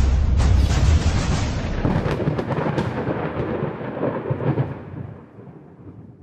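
Deep, crackling rumble of a jet aircraft, loudest at the start and fading away over about five seconds.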